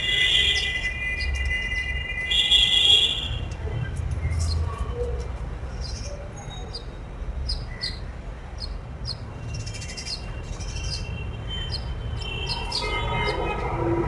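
House sparrows chirping in many short, sharp notes, over a steady low background rumble.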